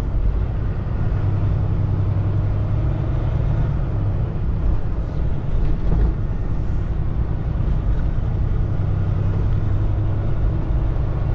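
Semi-truck's diesel engine running with a steady low drone, mixed with tyre and road rumble, heard from inside the cab while driving.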